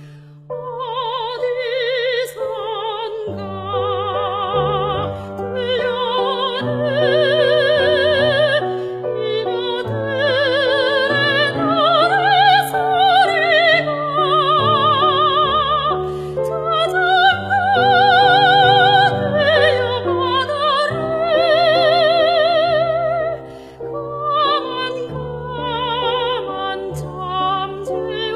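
A soprano singing a Korean art song (gagok) over accompaniment, her voice carrying a wide vibrato on long sustained notes.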